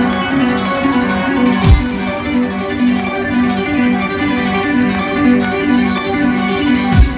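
Live progressive metal instrumental in which an electric guitar plays a fast riff of repeating plucked notes. Twice, about two seconds in and near the end, a deep boom drops in pitch, and these are the loudest moments.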